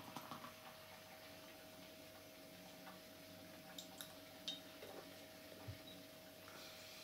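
Near silence with a faint steady hum, broken by a few faint clicks from the wire clamp and stopper of a swing-top beer bottle being handled, then a soft knock as the bottle is set down.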